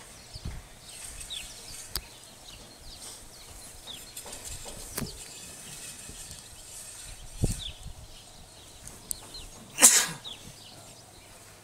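Open-air ambience with small birds chirping now and then in short, falling high notes, a few light clicks and knocks, and a single short, loud burst of noise about ten seconds in.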